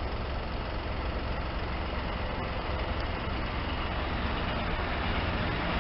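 Steady low rumble of an approaching Class 158 diesel multiple unit, growing slightly louder.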